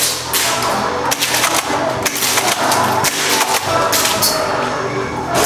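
Airsoft guns firing in an indoor arena: a run of sharp, irregular pops and clicks from shots and BBs striking surfaces.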